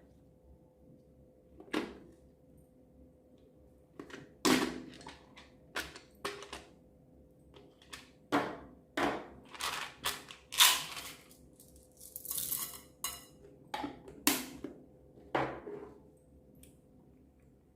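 Slime being mixed and worked: irregular sharp pops, clicks and squelches, with a longer crackling stretch a little past the middle.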